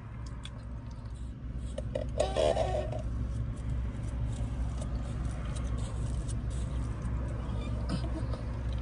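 Lemonade sipped through a plastic straw, with a short slurp about two seconds in, over the steady low hum of a car idling.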